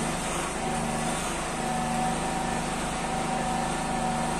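A steady engine drone with a constant hum, holding the same level throughout.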